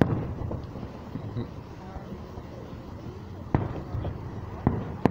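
Aerial fireworks going off: a sharp bang at the start, then two more about three and a half and four and a half seconds in.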